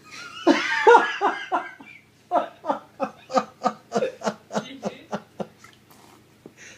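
A person laughing: a loud burst about half a second in, then a steady run of short ha-ha pulses, roughly three a second, that stops after about five and a half seconds.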